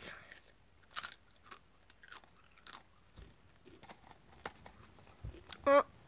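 A person biting and chewing a Pringles crisp, with short irregular crunches and crackles. A brief voiced sound from the eater comes near the end.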